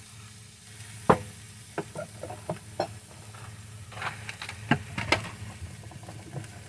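Sharp clicks and knocks of a spice container and cooking utensils as spices go into a pan: a loud one about a second in, a few more shortly after, and a quick cluster around four to five seconds in, over a low steady hum.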